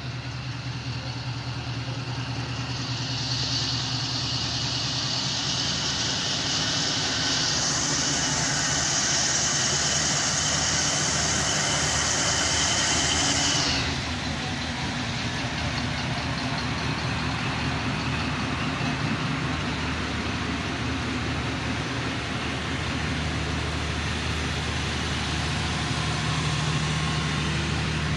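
Diesel-electric locomotive engine running as a passenger train pulls out slowly. A loud hiss comes in a few seconds in, gets louder, and cuts off suddenly about halfway through. After that the coaches roll past with a steady rumble, and a low engine hum rises near the end as the power van's generators go by.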